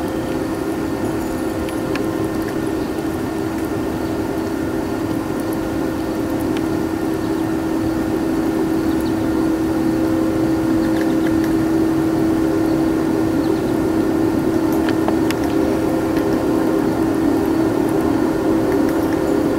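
A steady machine hum, slowly growing a little louder, with a few faint clicks.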